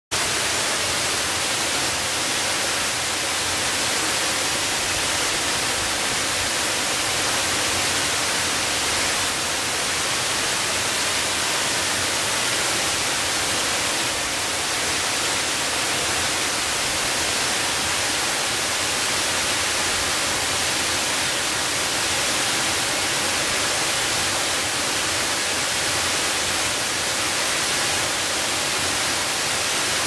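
Waterfall cascading down a stepped rock face: a steady, bright rushing hiss of falling water with little low rumble, unchanging throughout.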